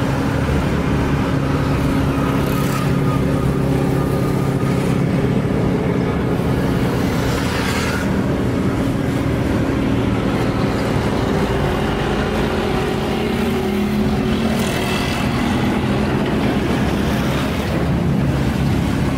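Roadside traffic noise: a steady low engine hum, with vehicles passing by a few times.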